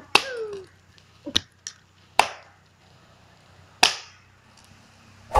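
A long stick of firewood being beaten against a fallen coconut palm trunk to snap it in two: about five sharp wooden strikes, unevenly spaced, with a lighter knock between the second and third.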